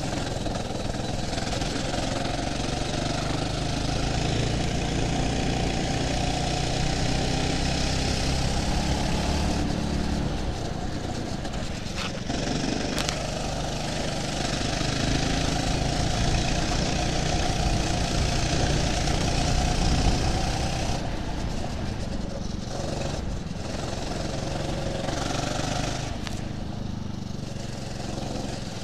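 Go-kart engine running right by the microphone, its pitch climbing and falling as the throttle is opened and lifted through the corners. Two sharp clicks come a little before halfway through.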